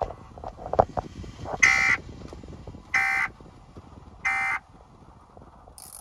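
Three short, screeching digital data bursts, each about a third of a second long and spaced a little over a second apart, heard through a car's FM radio: the Emergency Alert System end-of-message (EOM) code that closes a broadcast flash flood warning.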